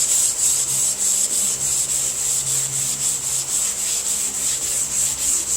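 Sandpaper on a long sanding block (longboard) being rubbed over a car body panel in even back-and-forth strokes, about three a second, a steady rasping hiss.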